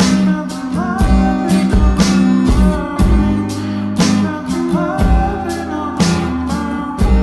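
Background music: a song with guitar and a steady beat of about one strong bass thump a second.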